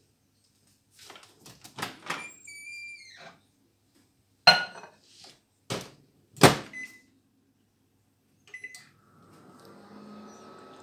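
A microwave oven being loaded and set: small clacks, two loud sharp clacks midway and short electronic beeps. About nine seconds in, the oven starts running with a steady hum, heating a mug of butter and milk.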